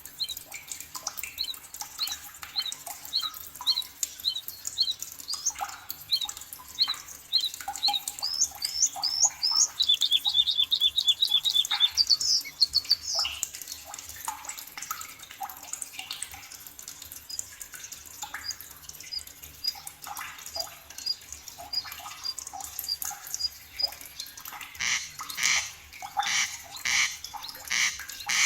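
Forest birds singing: one bird repeats a short high note about twice a second, another gives a fast trill about ten seconds in, and near the end a bird gives a run of loud, harsh calls.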